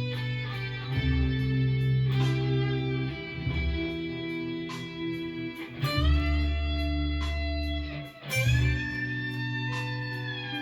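Electric guitar playing a slow blues lead in E minor, with long sustained notes and string bends that glide up in pitch, over a backing track with a bass line and light steady percussion.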